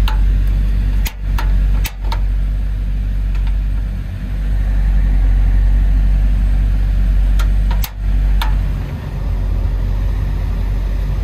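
Ford Transit Connect van engine idling steadily, heard from inside the van. Over it come a few sharp clicks, a cluster about a second in and another about eight seconds in: the igniter of a Coleman butane camp stove being clicked without lighting, the butane too cold to catch.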